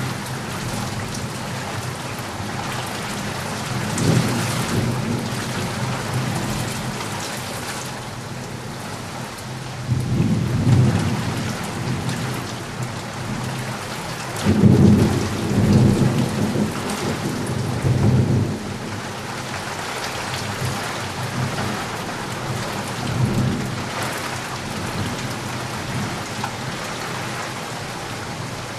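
Steady rain falling, with low rolling rumbles of thunder several times, the strongest run in the middle.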